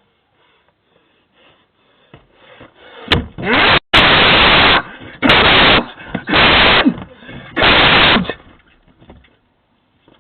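Four or five loud, harsh bursts of distorted noise, each about a second long, picked up by a Ring video doorbell's microphone and overloading it, beginning about three seconds in after a quiet start.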